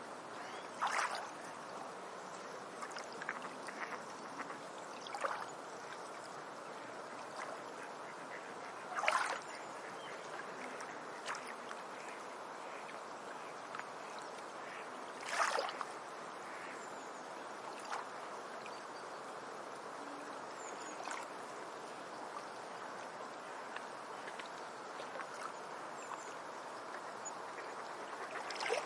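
Autumn beach ambience: a steady wash of water noise, with a few brief louder sounds standing out about a second, nine seconds and fifteen seconds in.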